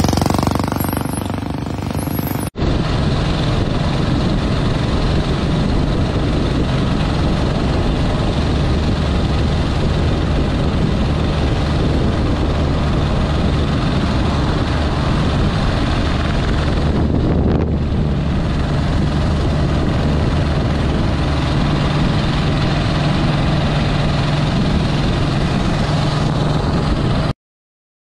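A vintage motorcycle coming past and fading, then after a sudden cut the steady drone of a vintage motorcycle engine at cruising speed, heard from the saddle with wind noise. It cuts off abruptly near the end.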